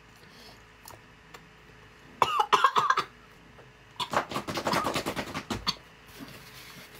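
A woman coughing and sputtering from the burn of a mouthful of wasabi-loaded abalone: a short strained vocal sound about two seconds in, then a quick run of harsh coughs from about four seconds in that stops about a second and a half later.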